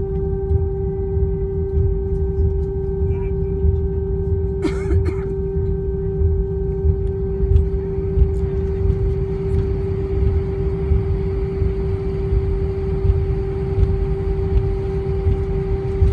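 Cabin noise of an Airbus A319 taxiing with its engines at idle: a steady low rumble under a constant hum tone. A short burst of noise breaks in about five seconds in.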